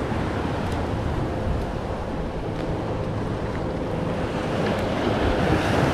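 Small waves washing against jetty rocks, a steady rushing wash, with wind buffeting the microphone.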